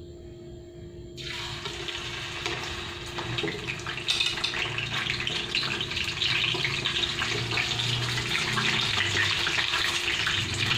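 Hot cooking oil sizzling in a frying pan as pieces of snakehead fish (dalag) are put in with tongs. The sizzle starts suddenly about a second in and gets louder about four seconds in.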